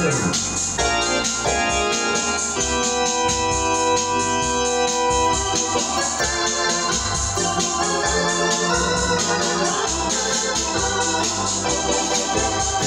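Hammond home console organ played with both hands: sustained chords over a bass line that moves from note to note, with a long held chord about three seconds in.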